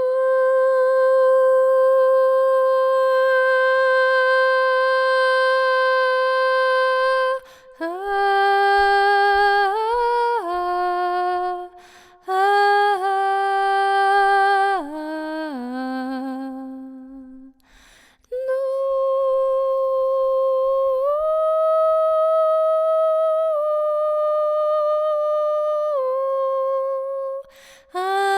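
A woman's voice singing wordless long held notes for sound healing. The first note is held for about seven seconds; after a short break comes a phrase of shorter notes stepping downward in pitch, then after a pause more long held notes that step up and back down.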